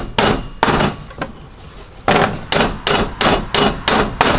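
Hammer driving 7-penny nails into the box-joint corner of a wooden Langstroth hive body: two strikes, a gap of about a second and a half, then a run of about seven quick strikes.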